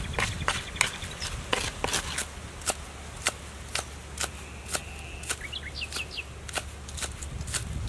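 Sharp knocks on wood, two or three a second: first a wooden spoon working in a coconut-shell bowl, then a knife chopping spring onions on a wooden block. A few high chirps sound about five seconds in.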